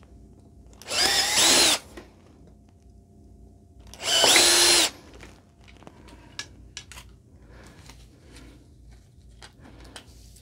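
Cordless drill boring holes through a PVC strip with a bit just over 5/16 inch: two short bursts, the motor pitch rising as the trigger is squeezed and falling as it is released. Faint clicks of the strip being handled follow.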